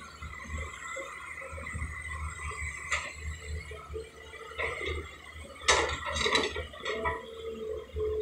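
Hydraulic excavator (bhekhu) engine running with a low pulsing rumble while it digs wet river mud, with a few sharp metallic clanks, the loudest about six seconds in.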